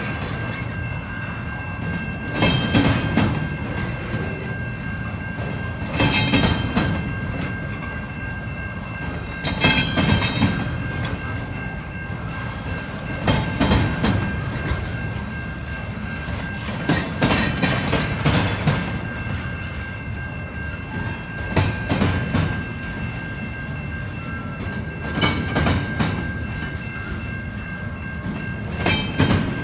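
Double-stack intermodal container train rolling past: a steady rumble of wheels on rail, with clattering bursts about every three and a half seconds as each car's wheel sets pass, and a thin steady high whine underneath.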